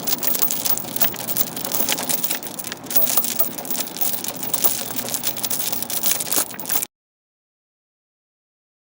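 A dense crackling patter of many small sharp clicks over a steady hiss, which cuts off abruptly to dead silence about seven seconds in.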